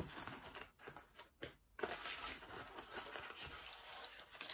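Faint rustling and crinkling of pipe tobacco and its packaging being handled, with a couple of brief pauses about a second and a half in.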